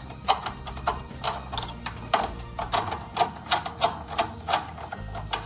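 Screwdriver driving in the screw of the inverter's negative battery terminal, a run of sharp clicks about three a second, over soft background music.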